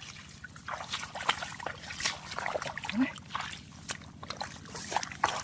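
Irregular splashing and sloshing of shallow muddy water as hands feel through it, with scattered slaps and drips.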